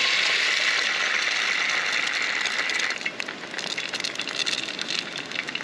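Raw eggs frying in hot oil in a cast iron skillet: a loud, steady sizzle that breaks up about three seconds in into crackling and spitting.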